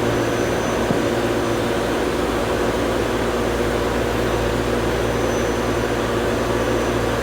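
Steady mechanical droning hum of an airport's background machinery, with a constant low hum and a faint high whine that don't change.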